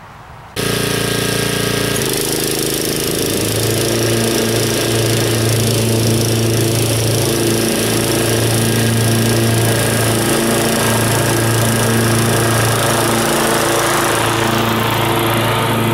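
Kawasaki FC420V single-cylinder engine on a Scag 36-inch Advantage walk-behind mower running steadily at speed. It begins suddenly about half a second in.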